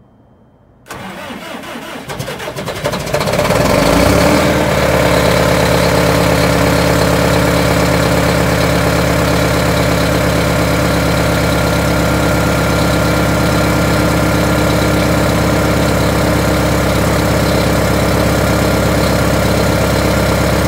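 2000 Orion V (05.501) transit bus engine started from cold. About a second in the starter cranks; the engine catches about three seconds later and settles into a steady idle.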